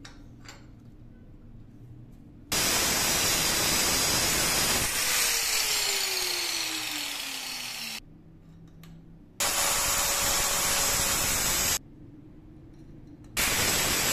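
Stick welding: the arc crackles and hisses in three bursts of a few seconds each. Each burst starts and stops suddenly as the electrode's arc is struck and broken, and a faint falling tone runs through the first.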